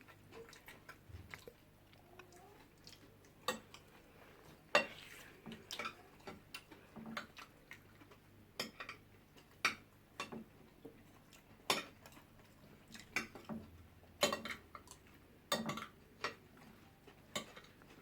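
Eating at a table: utensils on plates making irregular sharp clicks and taps, with no steady rhythm, while jollof rice and fish are eaten.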